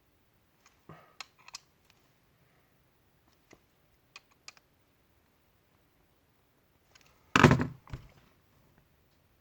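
Hands working on the blade assembly of a Wahl Magic Clip hair clipper: a scattering of light clicks and taps, then one louder thunk about seven seconds in with a smaller knock just after it.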